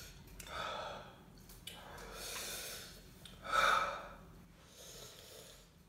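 A man breathing hard through his mouth, four heavy breaths, the third the loudest, from the burn of extra-spicy ramen.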